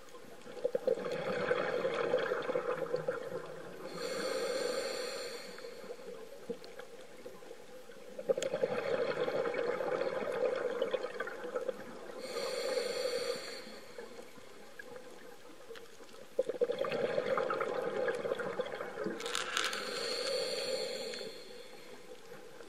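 Scuba diver breathing through a regulator: three slow breath cycles, each a longer stretch of bubbling exhaust followed by a shorter hissing breath.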